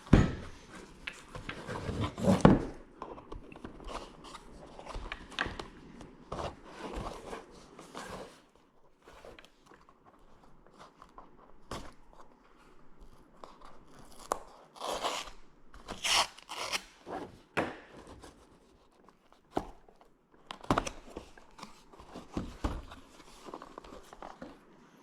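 Packaging being handled and opened: irregular crinkling, crunching and rustling of plastic wrappers and a box, in uneven bursts with a few louder clusters.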